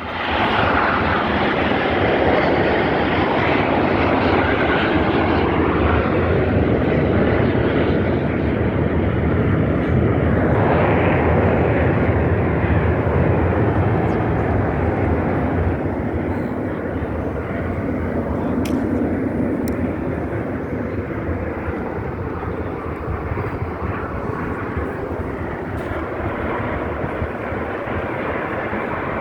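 Aircraft engines of an aerobatic formation team passing overhead at an air show, a loud continuous rushing roar that eases somewhat about halfway through.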